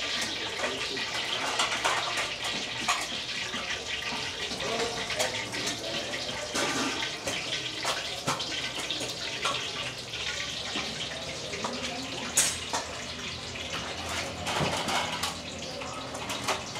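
Public market ambience: a steady rush of noise with scattered clinks and knocks and faint voices.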